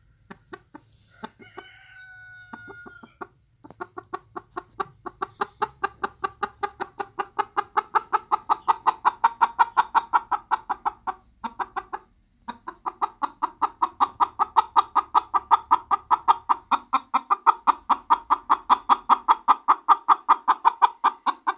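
Bantam hen clucking. A few separate clucks and a drawn-out note at the start, then a fast, steady run of about four to five clucks a second that breaks off briefly near the middle and resumes.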